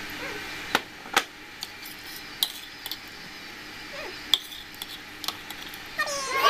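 Several sharp, separate clinks of crockery and cutlery: a ceramic mug and a metal fork and spoon knocking against a plate.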